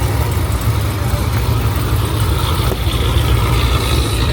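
A car engine idling steadily with a deep, low rumble.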